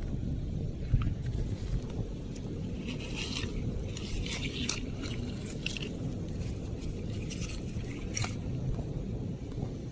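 Rubber-gloved fingers scraping and crunching through coarse sand and shell grit while digging a shell out, a few short scratchy scrapes scattered through, over a steady low rumble.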